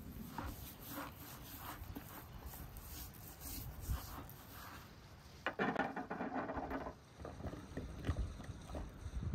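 Hands rubbing a dry spice mix into the skin of a raw turkey, soft irregular handling sounds. About five seconds in, dried fruit is tipped from a wooden bowl and tumbles onto a plate of peeled chestnuts, a louder clatter lasting a second or two, then a few scattered clicks.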